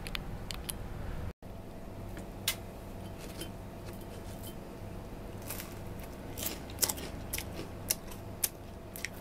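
Scattered sharp crackles and crunches of crisp toasted bread-crust sticks as they are pulled from a glass jar and eaten, busiest in the second half.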